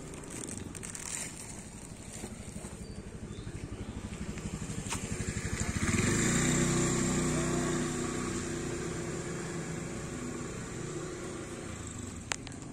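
A motor vehicle's engine passing by: a low, fast pulsing that grows louder, is loudest about six seconds in with a steady hum, then slowly fades. A single sharp click near the end.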